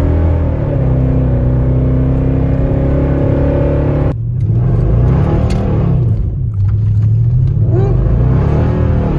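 Car engine running at a steady pitch for about four seconds, then changing abruptly to revving that rises and falls in two or three swells.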